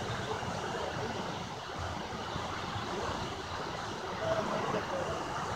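Mountain stream rushing over rocks and small cascades, a steady noise.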